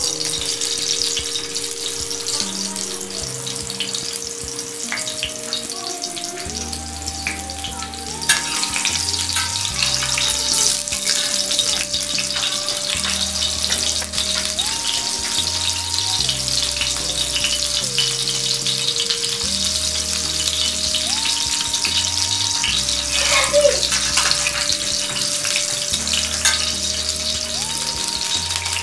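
Bitter gourd halves sizzling in hot oil on an iron tawa as a steel spatula presses them down. The sizzle grows louder about a third of the way in. A simple background melody with a bass line plays along with it.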